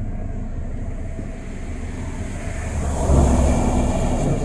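A steady low rumble that swells louder about three seconds in.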